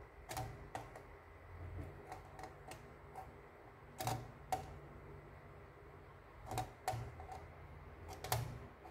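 A few faint, sharp metallic clicks, several in pairs a few seconds apart: pliers working the nut that locks the pulley on a Tesco BM1333 bread maker's belt drive as it is tightened.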